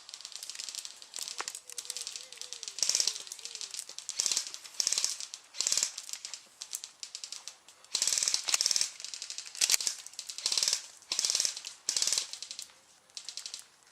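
Airsoft guns firing in short full-auto bursts, a fast clattering rattle of rapid shots repeated about ten times with brief pauses between.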